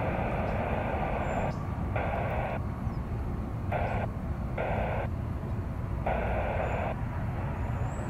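Steady low rumble of distant jet aircraft on the airfield, with a hiss that cuts in and out abruptly about six times.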